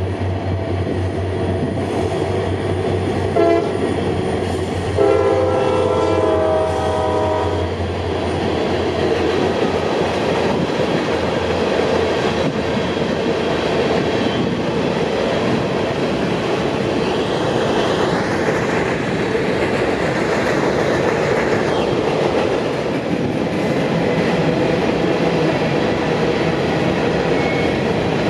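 Freight train led by EMD SD40-2 diesel locomotives passing, with a short horn toot about three seconds in and a longer horn blast from about five to eight seconds over the low engine rumble. After that comes the steady rolling clatter of the freight cars going by.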